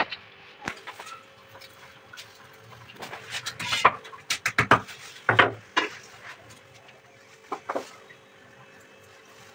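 A hammer tapping into the plastered wall: a quick run of sharp knocks about four seconds in, a few more just after, then two lighter taps near the end. The taps drive wall plugs into freshly drilled holes for mounting the purifier.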